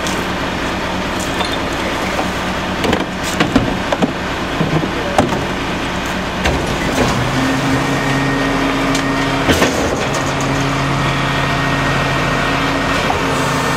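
Rear-loader garbage truck running, with sharp knocks and bangs of a trash can being dumped into the hopper a few seconds in. A steady mechanical hum comes back about seven and a half seconds in, as the hydraulic packer blade cycles down to compact the load.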